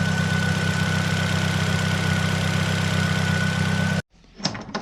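2005 Nissan Sentra's four-cylinder engine idling steadily, freshly fitted with four new ignition coils and spark plugs, a little loud because the muffler still needs fixing, with a steady high whine. It cuts off suddenly about four seconds in, followed by a few faint clicks.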